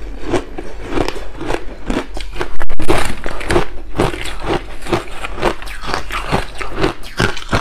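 Close-miked crunching and chewing of hard ice chunks coated in matcha and milk powder: a rapid run of crisp crunches, several a second, with the loudest crunch about three seconds in.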